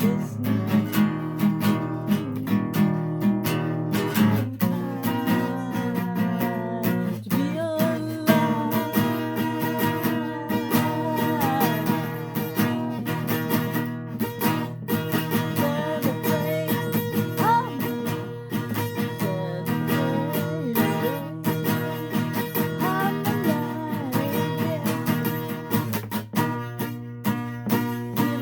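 Acoustic guitar playing a song, strummed and picked steadily.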